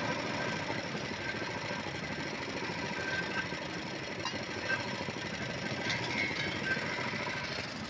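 Engine running steadily with a knocking chug, with a few light clinks of steel utensils.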